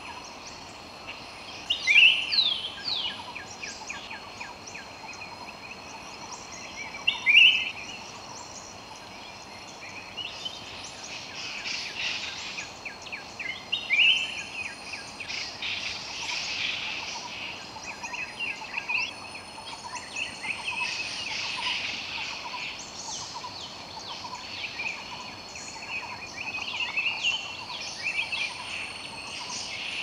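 A chorus of wild birds calling and chirping, with short loud bursts of calls about 2, 7 and 14 seconds in, over a steady high-pitched drone.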